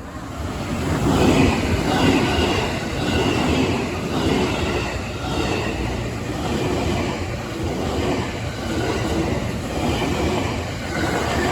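A train passing close by, a loud steady rumble of wheels on rails that builds over about the first second and keeps on without a break.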